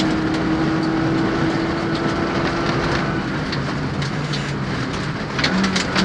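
Rally car engine heard from inside the cabin, running at a steady pitch over loud gravel and tyre noise, then dropping to a lower note about halfway through as the driver lifts for the corner. Near the end, stones clatter against the car.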